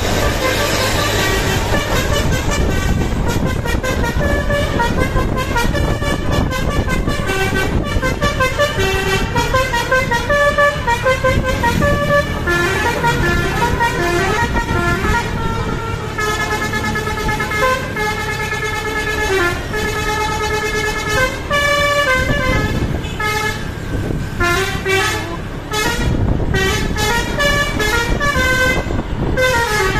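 Basuri telolet bus horn playing a melody, its multi-tone notes stepping up and down in pitch one after another, over the rumble of the bus. Sharp crackling stripes join in during the last third.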